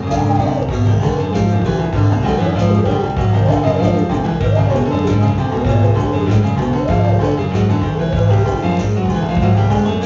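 A live band playing instrumental music with keyboards: a steady pulsing low bass line under a melodic figure that swoops up and down again and again.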